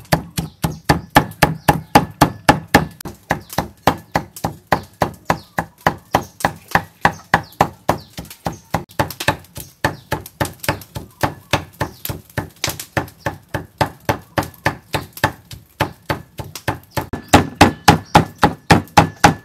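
Steel cleaver chopping small whole river fish into paste on a thick round wooden chopping block, in a steady rapid rhythm of about four sharp blows a second. The blows are loudest near the end.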